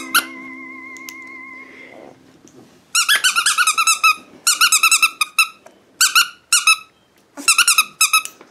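Squeaky dog toy squeaked in quick runs of short, high squeaks, several a second, starting about three seconds in and broken by short pauses. A held musical tone fades out in the first two seconds.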